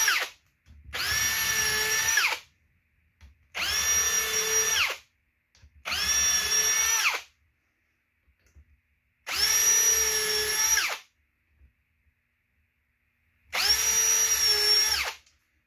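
Cordless drill with a self-centering bit drilling pilot holes for hinge screws: five short runs of a second or two each, every one whining up to speed and holding a steady pitch before stopping, with pauses between.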